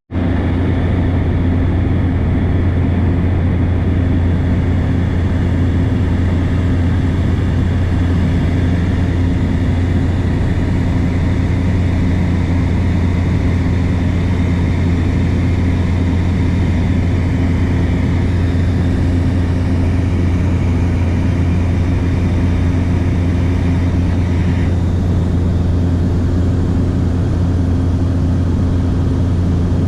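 Small plane's engine and propeller droning inside the cabin in flight: a steady, loud low hum that holds the same pitch throughout.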